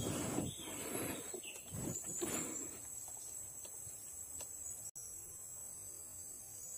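Faint, steady high-pitched chirring of insects such as crickets, with a few soft rustling noises in the first few seconds.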